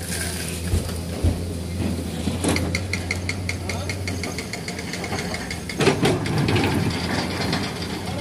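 Komatsu PC210 hydraulic excavator's diesel engine running steadily as it dumps soil into a tipper truck and swings back to dig. A rapid metallic rattling comes about two and a half seconds in, and a louder crunch around six seconds in as the bucket works the soil pile.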